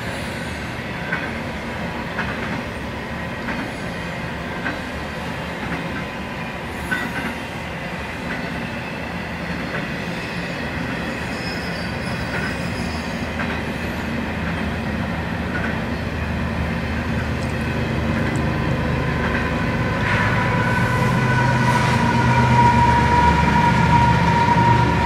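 Freight train cars rolling past with a steady rumble of wheels on rail and a few light clicks. A high, steady wheel squeal grows louder over the last few seconds as the train gets louder overall.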